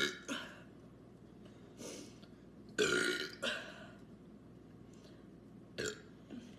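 People belching on purpose, a few separate burps one after another, the loudest about three seconds in.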